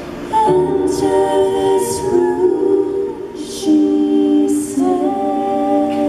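Live song performance: female vocals with violin, cello and keyboard accompaniment. The singing comes in strongly about half a second in.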